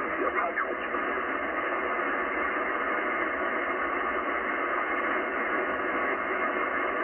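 Yaesu FTdx10 transceiver receiving upper sideband on the 10-meter amateur band: steady band-noise hiss, cut off above about 3 kHz by the receiver's filter, as the tuning dial is turned between stations. A few faint gliding whistles in the first second as it tunes past signals.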